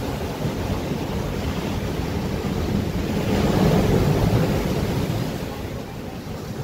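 Ocean surf breaking on a rocky sand beach: a wave crashes and its foam washes in over the rocks, the rush rising to its loudest a little past the middle and then falling away.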